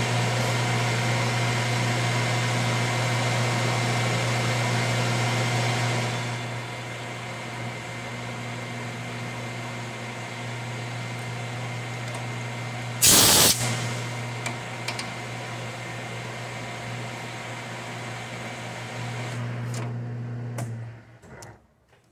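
Metal lathe running with a steady motor hum as it takes a light facing cut on a collar, louder for the first six seconds, then quieter and even. A brief, loud hiss breaks in about thirteen seconds in, and the lathe runs down and stops shortly before the end.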